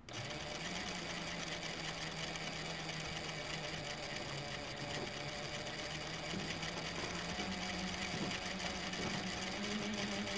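Juki DDL-8700 industrial lockstitch sewing machine driven by a Reliable SewQuiet 6000SM servo motor, running with the presser foot up and no oil, heard close at the synchronizer. It starts at once as a steady mechanical hum, and its pitch steps up slightly partway through and again near the end as the speed is raised.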